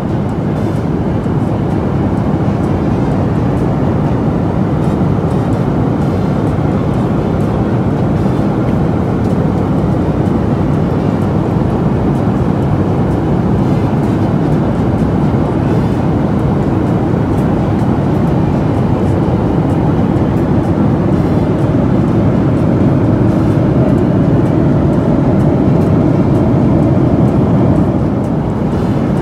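Steady cabin noise of a jet airliner in cruise flight: an even rush of engines and airflow, dipping slightly near the end.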